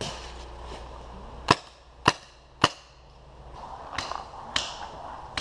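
Paintball marker firing: three loud, sharp shots about half a second apart near the middle, with fainter pops of other shots later on.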